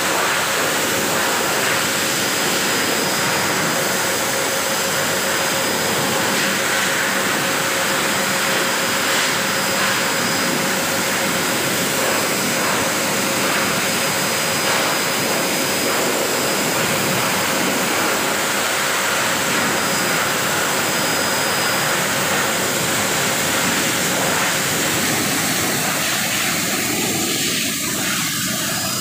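Pet grooming dryer blowing air steadily onto a wet dog's coat: a loud, even rush of air with a thin steady motor whine. The sound thins out near the end.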